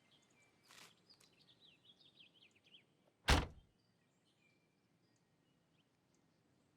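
Faint bird chirps, then one loud, sudden thud about three seconds in.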